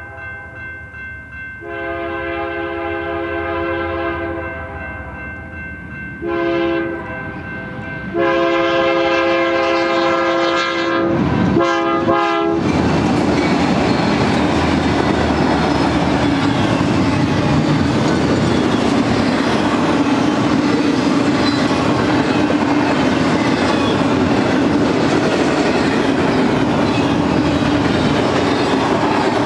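BNSF GE C44-9W locomotive sounding its horn for a grade crossing: a long blast, a short blast, then another long blast that breaks up near its end. The locomotive's diesel then passes loud and close, followed by a steady rumble and clickety-clack from the double-stack container cars' wheels.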